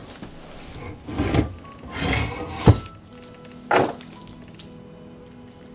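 Leather being pulled back and pressed by hand around the base of a deer antler: a few scuffing rustles and a sharp knock about two-thirds of the way through the first half. Soft background music with steady held notes comes in about halfway.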